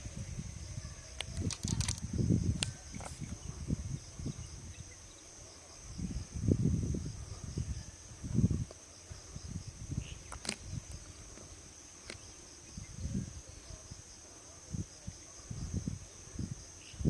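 Steady high-pitched chirring of insects, with irregular low rumbles and thumps and a few sharp clicks.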